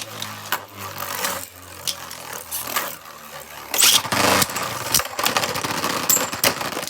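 Two Beyblade Burst spinning tops whirring in a plastic stadium, striking each other again and again with sharp clacks, the biggest hits about four seconds in and again near the end.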